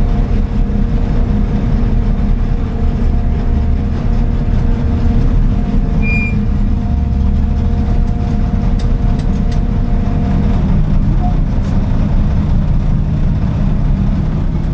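Race car engine idling, heard from inside the cabin. It is a steady low rumble with no revving, and a faint steady whine runs over it until about ten seconds in.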